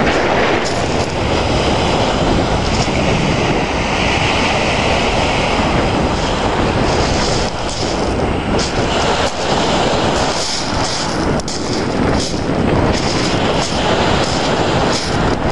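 Strong wind buffeting the microphone in a loud, gusty rumble, over waves breaking on a pebble lakeshore.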